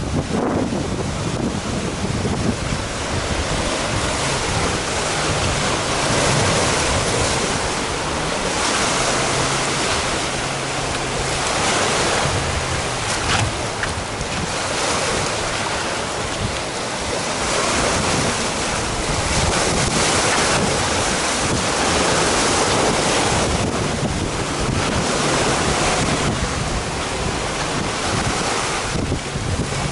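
Sea waves surging and breaking against rocks, the wash rising and falling every few seconds, with wind buffeting the microphone.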